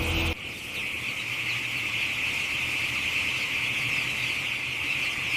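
A running engine cuts off abruptly a moment in. It leaves a steady high-pitched insect chirring.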